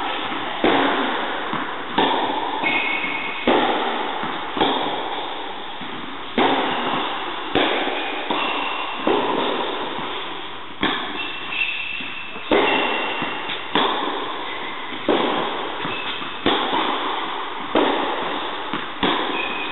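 Tennis balls struck by rackets in a baseline rally in an indoor tennis hall: a sharp hit about every one and a half seconds, each echoing in the hall, with lighter ball bounces between the hits.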